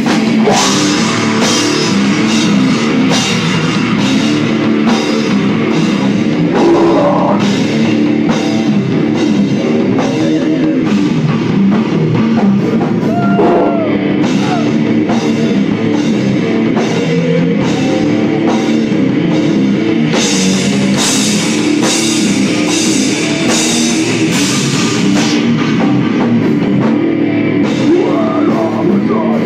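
Live heavy rock band playing loud: drum kit, distorted electric guitar and bass, with a singer on microphone at times.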